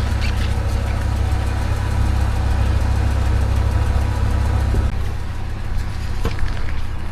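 An engine idling with a steady low rumble that drops away about five seconds in, leaving a weaker rumble with a few light clicks.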